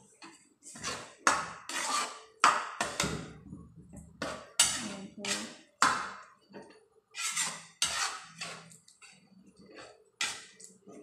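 Sharp strokes of a hand-held kitchen utensil on a hard surface, about a dozen and a half in uneven runs of one or two a second, with short pauses between the runs.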